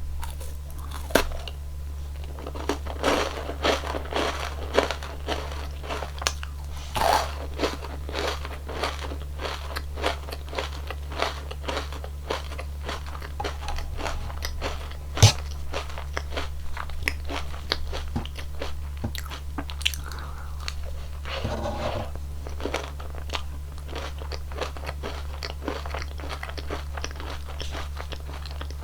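Close-miked biting, crunching and chewing of a cone ice cream, with many sharp crunches, one much louder about halfway through.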